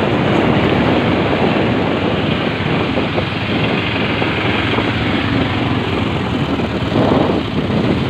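Steady rushing noise of a vehicle in motion, with wind buffeting the microphone and a brief swell about seven seconds in.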